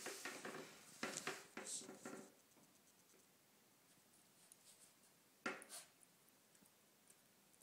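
Faint scratchy rustles and clicks from a komondor puppy chewing and pawing at an elastic cargo net on a tile floor. They come in a flurry over the first two seconds and again in a short burst a little past the middle.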